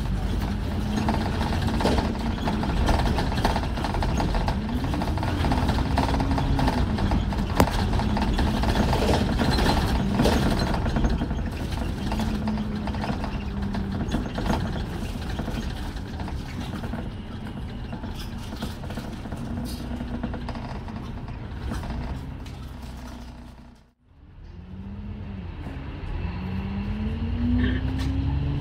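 Alexander Dennis Enviro400 MMC double-decker bus heard from inside while driving: the engine and drivetrain run with a whine that rises and falls in pitch as the bus speeds up and slows through the gears, with scattered clicks. Late on the sound fades almost to nothing for a moment, then builds back with a rising whine as the bus pulls away.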